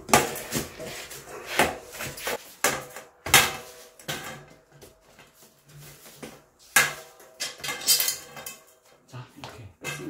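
Old bicycle tyre being worked off the rim by hand: the rubber bead scraping, snapping and knocking against the rim edge in a series of irregular sharp scrapes and clacks, with quieter pauses between them.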